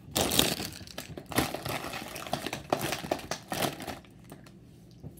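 A crinkly plastic snack bag being handled and rustled for about four seconds, then going quiet.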